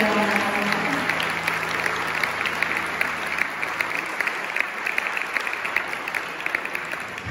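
Audience applause after a live song, a dense patter of hand claps that slowly dies down. The band's last held note fades out within the first second.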